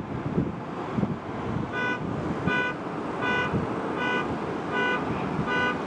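An electronic warning beeper sounds six times at an even pace, a little faster than one beep a second, over wind buffeting the microphone.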